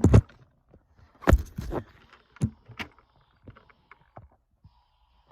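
A series of thumps and knocks: a strong one at the start, more around one and a half and two and a half seconds in, then fainter scattered ticks.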